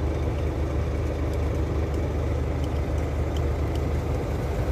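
Truck's diesel engine idling steadily, a low even rumble heard from inside the cab. The engine has just been rebuilt and is still being run in.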